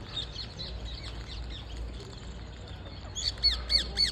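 Parrots chirping in many short, quick calls, with a louder run of sharp chirps about three seconds in.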